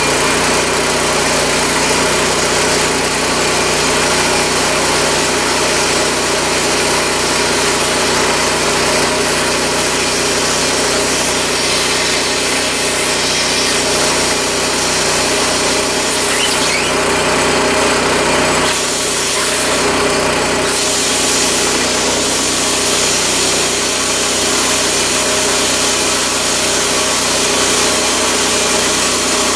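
Harbor Freight Predator 212cc single-cylinder engine running steadily, driving the Emglo air compressor pump. The tank is not building pressure because air is leaking at a valve.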